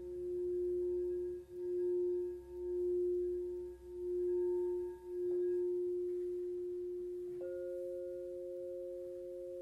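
Crystal singing bowl ringing with one pure, sustained tone that swells and fades in slow pulses about once a second. About seven and a half seconds in, a second, higher bowl joins, the two sounding together as a perfect fifth.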